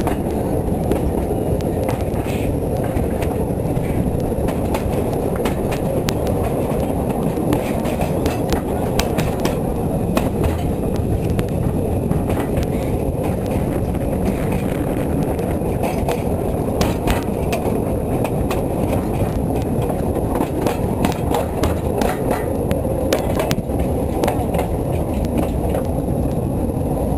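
Narrow-gauge railway wagons rolling along the track: a steady rumble from the wheels with scattered clicks and clanks from the rail joints and the chain couplings.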